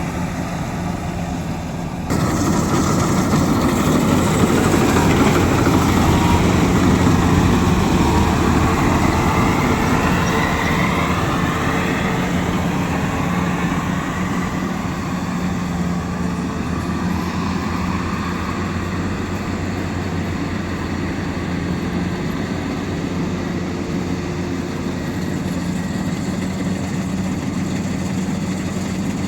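Heavy farm-machinery engine running steadily. About two seconds in, the sound jumps suddenly louder and busier, then settles back to an even run after about ten seconds.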